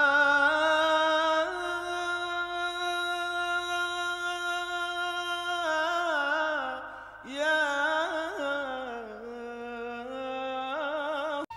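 A single voice chanting a slow Islamic salawat, a blessing on the Prophet Muhammad, in long held notes with wavering, ornamented turns. The voice cuts off abruptly just before the end.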